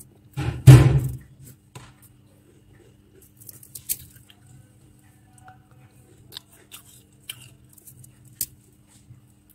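Thick, flaky freezer frost crunching as fingers dig and scrape into it: one loud crunch about a second in, then scattered faint crackles. A low steady hum runs underneath.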